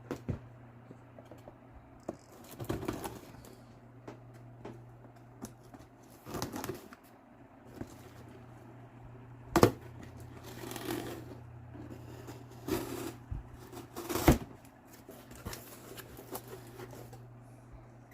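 Cardboard box being slit open with a pocket knife and its flaps and contents handled: irregular scraping, rustling and clicks, with a few louder knocks. A steady low hum runs underneath.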